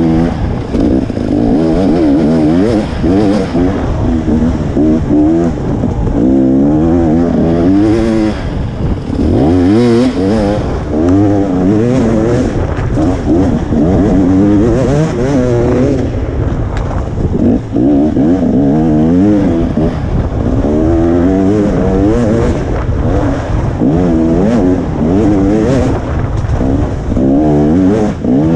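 KTM 300 XC two-stroke dirt bike engine ridden hard, close up. The pitch rises and falls every second or so as the throttle is opened and closed.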